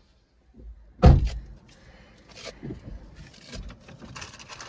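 A single heavy thump inside a car about a second in, followed by rustling and small scattered clicks as things are handled on the back seat.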